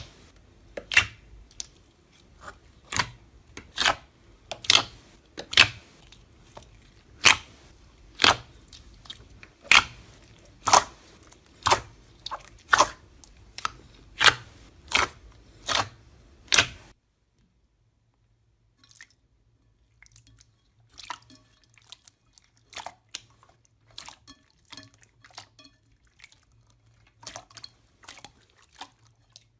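Close-up ASMR crunching of a slime or soap-type material: a run of sharp, crisp crackles, about one a second. About two-thirds of the way through they stop abruptly, and after a short gap quieter scattered crackling follows.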